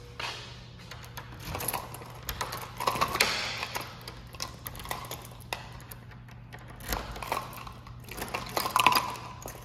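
A ring of keys jangling and clicking as a key is pushed into and turned in the lock cylinders of steel door lever handles, unlocking a pair of doors. The metal clicks and rattles come in uneven clusters, busiest about three seconds in and again near the end.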